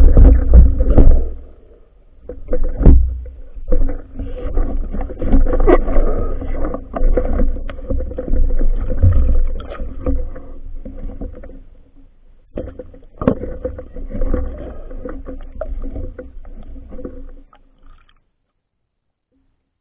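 Muffled underwater sound picked up by a phone in a waterproof housing: a low rumble of water movement with scattered knocks and scrapes against the housing as the diver moves. It stops abruptly near the end.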